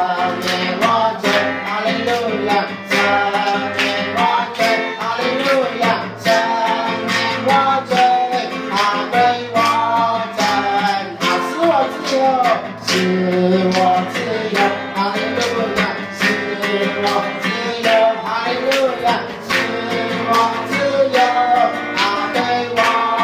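Background music: a song with singing over guitar and a steady beat.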